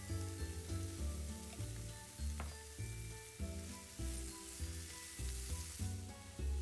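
Broccoli and bacon sizzling as they are stir-fried and tossed in a frying pan. Background music with a pulsing bass line plays over the frying.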